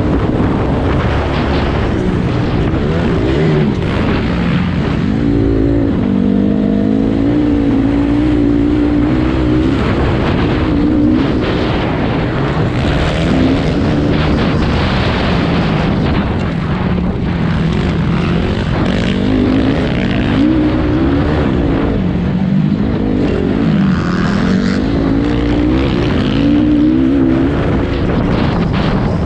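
Motocross motorcycle engine revving up and falling back again and again under racing throttle, with a steady low rumble of wind on the microphone.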